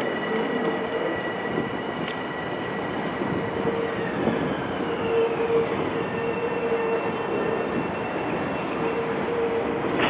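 Long Island Rail Road electric train rolling along the tracks, a steady rail rumble under high whining tones that glide downward about four seconds in.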